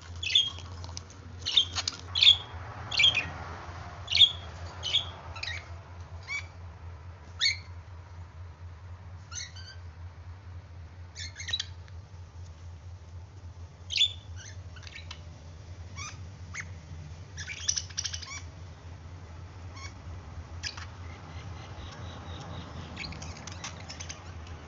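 Budgerigars chirping and squawking in short, sharp calls, coming thick and fast for the first few seconds and then more scattered, over a steady low hum.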